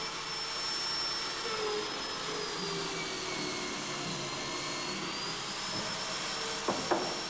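Electric power drill mounted in a bench drill stand, running and boring through plywood: a steady motor whine whose pitch sags for a couple of seconds in the middle as the bit bites into the wood, then picks back up. Two short knocks near the end.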